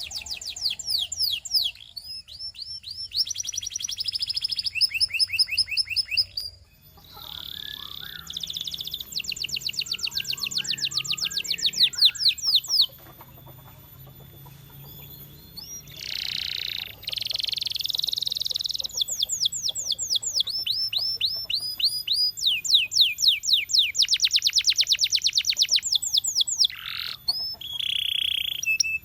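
Russian singing canary's song: fast trills of rapidly repeated high notes, each run lasting a few seconds, with a pause of a few seconds around the middle.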